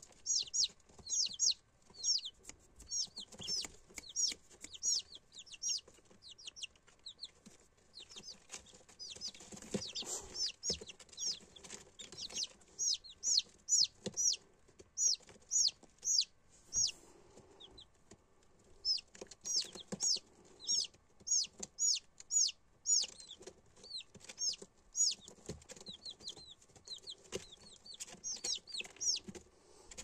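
Shamo chicks peeping: a quick run of short, high chirps, each falling in pitch, several a second, with a couple of brief lulls.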